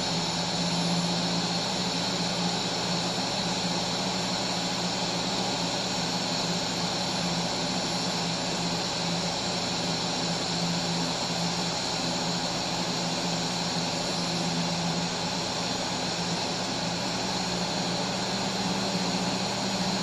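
Steady hum and hiss of a TIG arc on steel from a Tweco Fabricator 141i inverter welder, held unbroken, with the pedal giving it far too much power.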